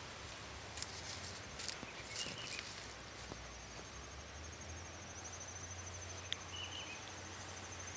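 Quiet riverside ambience with an insect trilling: a high, fast-pulsing trill starts about three seconds in and carries on steadily. A few brief rustles come near the start, and two faint short chirps are heard.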